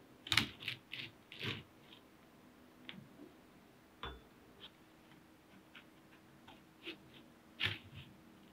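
Slotted spatula scraping under baked oatmeal cookies on a perforated silicone baking mat and lifting them off. A quick run of short scrapes and clicks comes in the first two seconds, then scattered light ticks, and two more sharp scrapes near the end.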